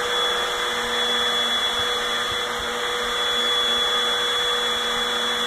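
Vacuum cleaner running steadily: an even rush of air with a constant high whine.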